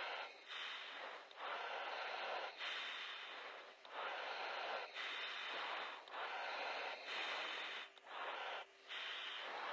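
Breathing through an oxygen-mask microphone on the F/A-18's cockpit intercom: about eight hissing breaths in steady succession, each roughly a second long with short breaks between.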